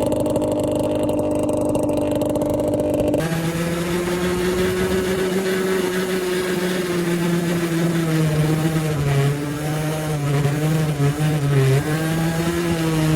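A 50cc two-stroke Derbi Senda engine running through a Technigas Enox aftermarket exhaust. The note holds steady, changes abruptly about three seconds in, then rises and falls repeatedly with the throttle near the end.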